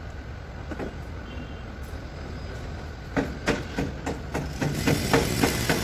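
Low steady rumble of a running engine. From about three seconds in, a quick run of sharp knocks, about three a second, as metal parts are knocked together while being handled.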